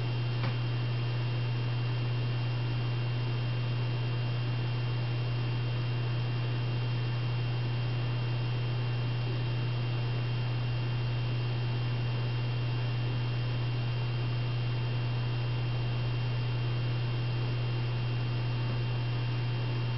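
Steady low electrical hum with a faint high whine and hiss, unchanging throughout; a faint click about half a second in.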